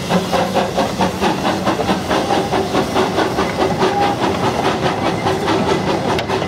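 Hudswell Clarke-built narrow-gauge steam locomotive No. 19 working past with a passenger train: a steady, even rhythm of exhaust chuffs over a hiss of steam. The carriages following behind it rattle along the rails.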